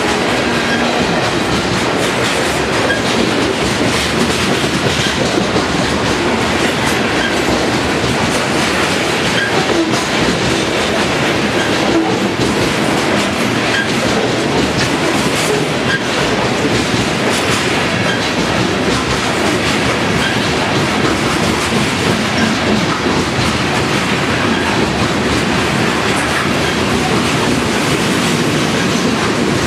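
Freight train of covered hopper cars rolling past close by: a steady clatter of steel wheels on the rails, with scattered clicks as the wheels cross rail joints.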